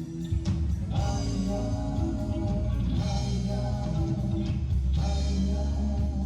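Upbeat rock song with drums, guitar and singing, played loudly at a street performance.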